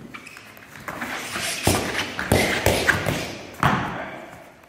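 Scuffling of partners in a krav maga rear-attack drill, with about six heavy thuds of bodies and strikes landing between one and a half and four seconds in.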